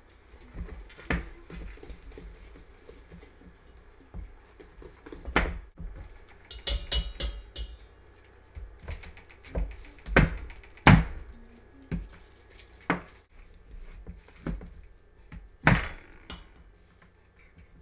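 Whisk and spoon clinking and knocking against a stainless steel mixing bowl while cookie dough ingredients are mixed. The knocks come at irregular times, with the loudest about ten and eleven seconds in and again near the end.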